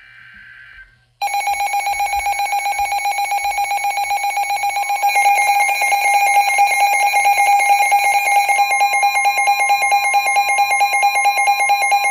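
NOAA weather radio alert sequence on two Midland weather radios. It opens with a short faint burst of SAME data tones. About a second in, a radio's loud, rapidly pulsing alarm beeps start, and a second radio joins around five seconds in, making it louder. Near nine seconds the broadcast's steady 1050 Hz warning tone comes in underneath; this signals a severe thunderstorm warning.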